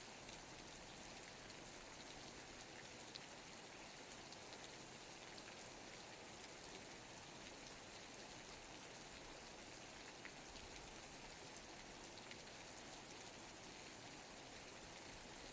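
Steady rainfall: a quiet, even hiss of rain on surfaces, with a few single drops ticking out a little louder now and then.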